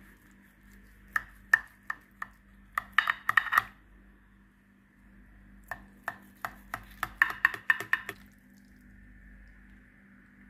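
Metal knife cutting through a baked eggplant casserole, clicking and scraping against the ceramic baking dish in two runs of quick taps a few seconds apart.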